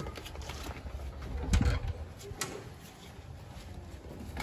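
A wooden door being unlatched and pushed open: a loud low thump about a second and a half in and a few sharp clicks, over a steady low rumble.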